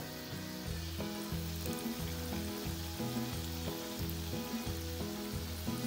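Doughnut dough deep-frying in hot vegetable oil, a steady sizzle, under background music with a simple stepping melody.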